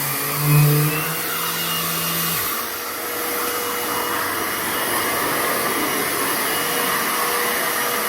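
DeWalt DCW210N 18V brushless random orbital sander running with a Titan vacuum drawing dust through its extraction port. The sander's hum falls away and stops about two and a half seconds in, leaving the vacuum's steady rushing.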